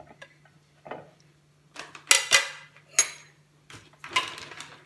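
Plate and bowl clinking a few times as boiled cauliflower florets are tipped from a plate into a bowl. The sharpest clinks come about two to three seconds in, with one more near the end.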